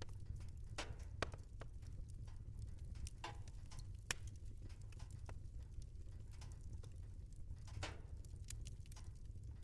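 Wood fire in a fireplace crackling, with irregular sharp pops and snaps over a steady low rumble of the flames; the sharpest pops come about one second and four seconds in.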